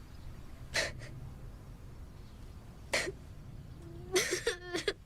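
A boy crying quietly: two sharp sniffs, then near the end a shaky sob with a brief wavering whimper.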